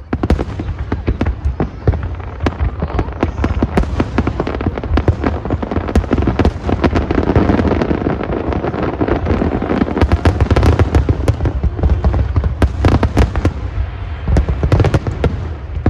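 Fireworks going off in a dense, continuous barrage of rapid bangs and crackling.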